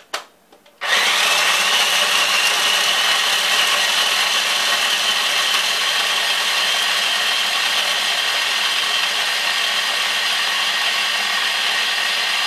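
Small electric food chopper running steadily and loudly, chopping whole and half pecans; it starts about a second in and runs without a break.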